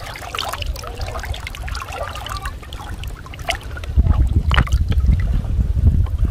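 Muddy water sloshing and trickling as a person wades through it pushing a hand fishing net. A low rumble grows louder about four seconds in.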